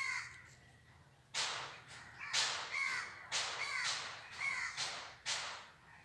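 Crow cawing: a series of about five harsh caws, roughly one a second.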